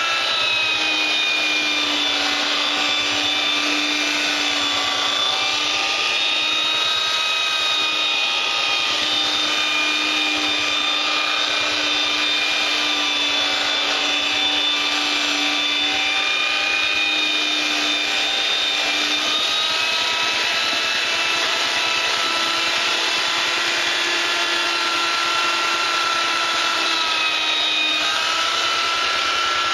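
Electric power sander running continuously on a wooden cutting board. Its motor whine is steady but drifts slightly up and down in pitch, with a small rise near the end.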